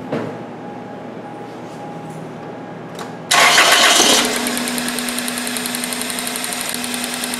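A 2000 Chevy Prizm's 1.8-litre four-cylinder engine is started about three seconds in. It runs loud for about a second, then settles into a steady, evenly pulsing idle. It is running on three cylinders: number one has its injector unplugged and a compression gauge in its plug hole for a running compression test.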